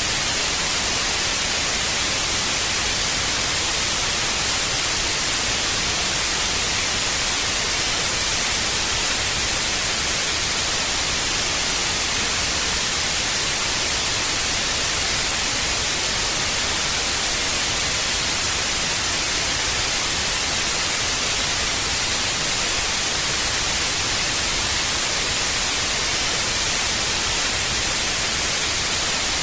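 Old TV static: a steady, even hiss, brightest in the high frequencies, with no change in level.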